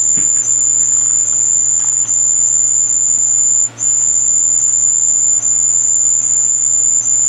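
A continuous, piercing high-pitched electronic tone over a low steady hum, cutting out for an instant about three and a half seconds in.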